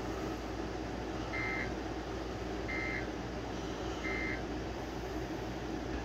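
Three short end-of-message (EOM) data bursts of the EAS/SAME digital code from NOAA Weather Radio, each a brief electronic buzzing screech about a third of a second long, evenly spaced a little over a second apart, marking the end of the Required Weekly Test. A steady hiss and hum runs underneath.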